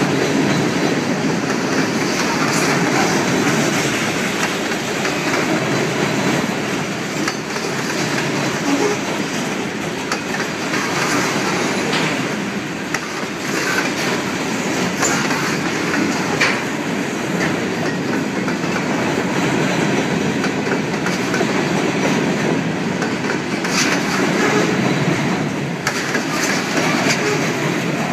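Freight train cars rolling past, their steel wheels clattering over the rails in a steady rumble with scattered sharp clicks.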